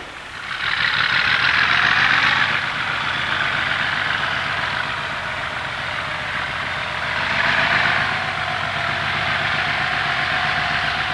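Diesel locomotive approaching under power: a fast, deep engine beat with a steady hissing roar over it and a faint whine that rises slightly in pitch midway.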